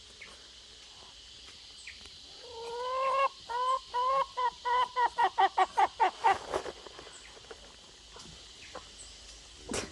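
A chicken cackling: a rising, drawn-out call, then a run of quick clucks, about four or five a second, for some three seconds. A single short knock sounds near the end.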